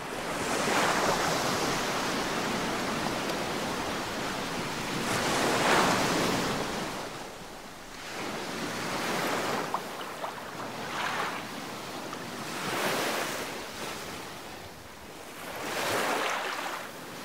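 Small sea waves breaking and washing up a sandy beach, the surf swelling and fading about every three to four seconds.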